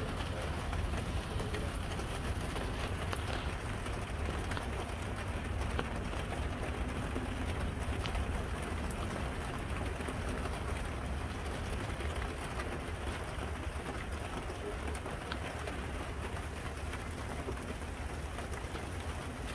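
Steady rain during a thunderstorm, with scattered fine drop ticks over an even hiss and a constant low rumble underneath.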